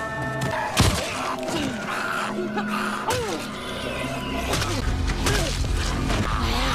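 Tense TV-drama music score over a fight, with several sharp thuds and hits from blows striking zombies, the loudest a little under a second in.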